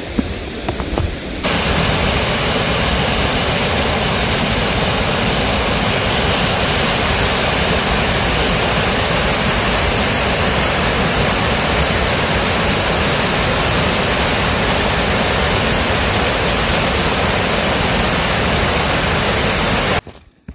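Lower Tahquamenon Falls: the steady rush of water pouring over the falls. It cuts in abruptly a second and a half in and cuts off abruptly just before the end.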